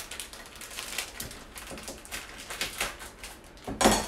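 Kitchen knife cutting on a cutting board: a run of irregular knocks, with one louder knock near the end.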